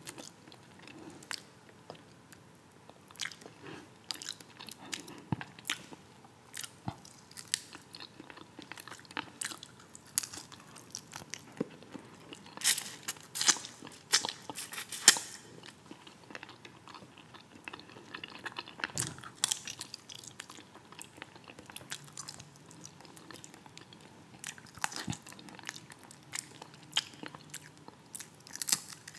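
Close-miked chewing and mouth sounds of someone eating a dinner of fried fish, potatoes and cabbage: wet clicks and small crunches throughout, with a louder run of crunches about halfway through.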